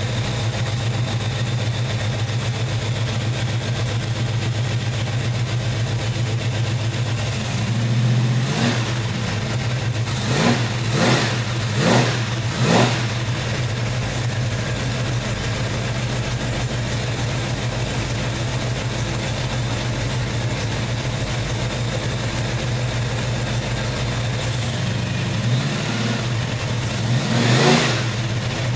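1967 Chevelle's V8 idling steadily on a freshly installed distributor. The throttle is blipped by hand: a short rise about eight seconds in, four quick revs soon after, then two more near the end, the last the longest. The revs test the timing and the vacuum advance, which stay steady.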